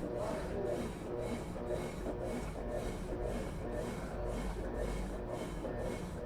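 Consul Facilite 11 kg washing machine agitating its load during the rinse: water and clothes churning and rubbing in a steady rhythm of about three strokes a second.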